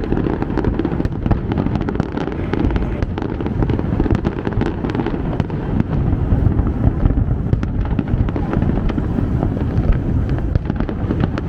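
Fireworks display: many rapid cracks and pops over a continuous low rumble.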